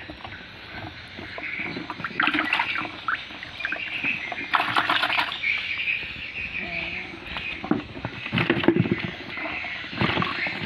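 Live climbing perch (papuyu) handled by hand in a basin of water: irregular splashes and wet knocks, busiest near the end, with a cat's short cries in between.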